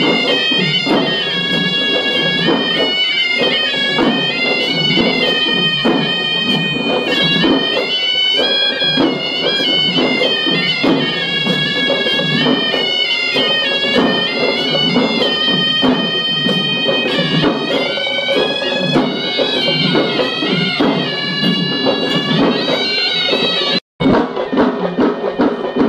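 Several Sri Lankan horanewa (double-reed shawms) play a shrill, stepping melody in unison over a steady drum beat. The sound cuts out for an instant near the end, then the music goes on.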